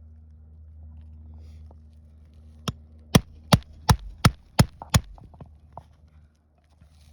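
Hammer striking a flat nail-removal tool (a roof snake) worked under asphalt shingle tabs to cut or pull out roofing nails: about seven sharp blows at roughly three a second, trailing off into a few lighter taps.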